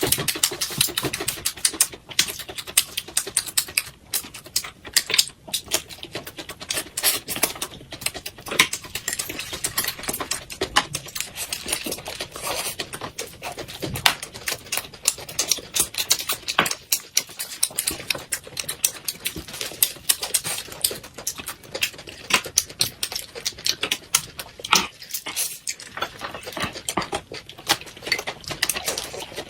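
A person eating close to the microphone: rapid, irregular chewing and lip-smacking clicks, with now and then a clink of cutlery.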